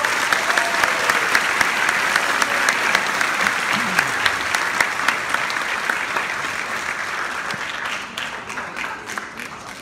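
Audience clapping at the end of a piece, many hands at once, steady and then dying away over the last couple of seconds.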